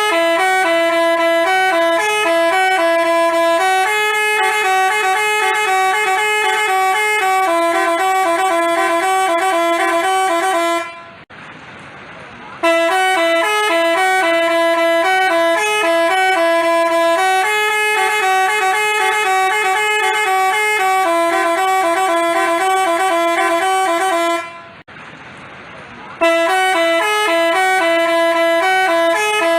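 Telolet basuri multi-tone bus horn playing a stepping melody, loud and clear. It plays the tune three times, with short breaks about eleven and twenty-five seconds in.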